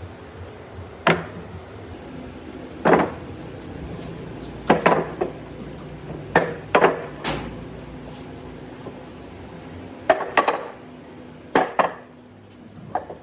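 Irregular sharp knocks and clinks of tools and wood being handled on a workbench, about a dozen hits, some in quick pairs, each ringing briefly.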